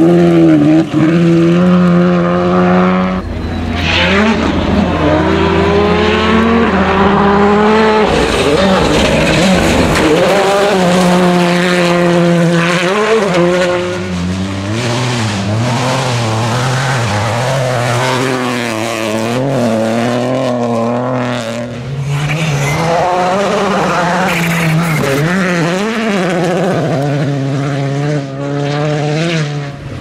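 Turbocharged rally cars, a Škoda Fabia RS Rally2 and a Peugeot 208 Rally4, flat out one after another on a gravel stage, their engines climbing and dropping in pitch through gear changes and lifts, with tyres scrabbling on the loose surface.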